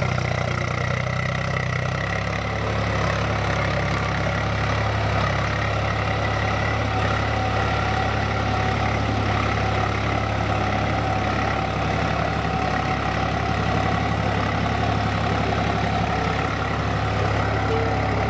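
Swaraj tractor's diesel engine running steadily at an even pitch while it pulls a tine cultivator through the soil.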